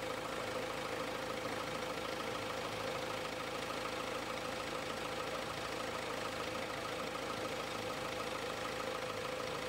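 Renault Duster's 1.5 dCi four-cylinder diesel engine idling steadily with the bonnet open. The diesel clatter is almost absent after an engine flush and a refill with fully synthetic 5W-40 oil.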